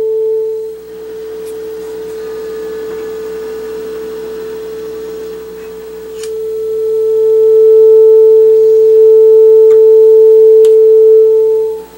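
Steady single-pitch test tone from a signal generator, received by the Magnavox console radio and heard through its speaker during AM alignment with the dial tuned near 600 kilocycles. It sinks to a weaker level about a second in as the tuning is moved, swells loud around six seconds as the signal comes in, and drops off sharply near the end.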